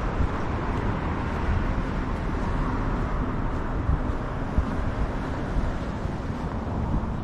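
City street ambience recorded on foot: a steady rumble of road traffic mixed with general street noise.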